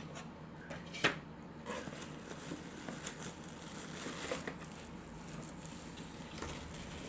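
Quiet rustling and crinkling of plastic wrapping and cardboard as a wrapped appliance is lifted out of its box, with one sharp knock about a second in and a few small crackles.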